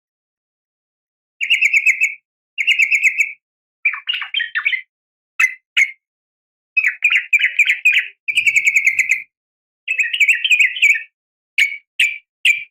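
Yellow-vented bulbul (trucukan) calling: a string of short, fast, bubbly chattering phrases, each under a second, with brief silences between. This is the female's call to males, used as a lure to set caged males singing.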